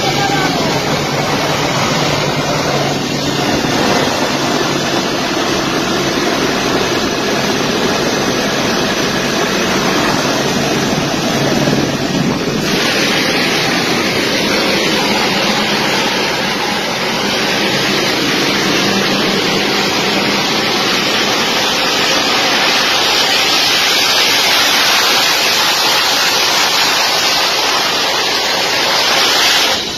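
Loud, steady rushing roar of a C-17 transport's jet engines heard close up under the wing, mixed with wind buffeting the microphone. About twelve seconds in the roar turns harsher and more hissing.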